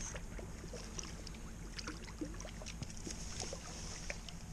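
A hooked trout splashing at the surface in shallow water close to the bank as it is reeled in and landed: many short, irregular splashes and drips over a steady low rumble.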